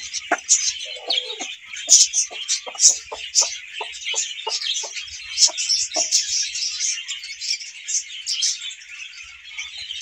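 Hen clucking in a quick run of short low clucks, about three a second, as she settles onto a clutch of eggs to brood; the clucking stops about six seconds in. Steady high chirping of small birds goes on behind.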